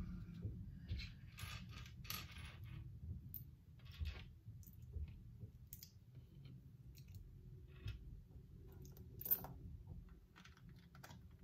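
Small plastic building bricks clicking and rattling on a desk as pieces are picked out of a loose pile and pressed together, with a sharper click near the end.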